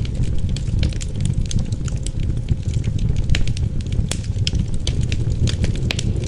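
Wood fire crackling in a fireplace, with many sharp irregular pops and snaps, over a steady low rumble of wind.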